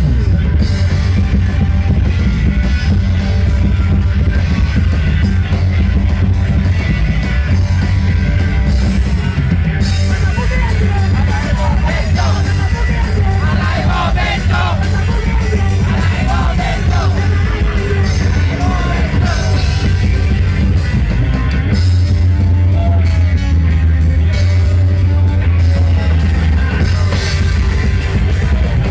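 Loud rock band music with a heavy bass and drum low end, and shouted singing from about ten seconds in until roughly two-thirds of the way through.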